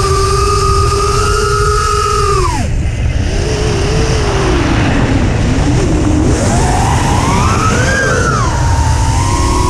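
Small FPV quadcopter motors whining. The pitch holds steady, drops sharply about two and a half seconds in as the throttle comes off, then rises again and swings up and down with throttle changes. A low wind rumble runs underneath.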